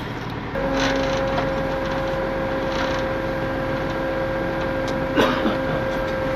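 Tow truck's hydraulic winch running with a steady whine that switches on about half a second in.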